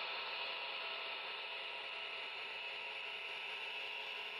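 HO scale model freight train rolling past, its cars' wheels running on the rails with a steady rattling whir that slowly fades.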